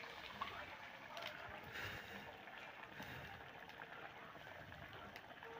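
Tengra fish curry boiling in a large iron kadai: a faint, steady bubbling of the gravy with small scattered pops.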